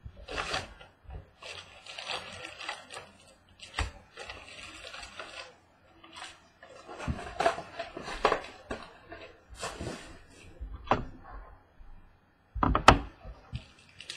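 Trading-card box packaging being handled and opened: irregular rustling and crinkling of wrapper and cardboard with scattered sharp clicks, the loudest a sharp snap near the end.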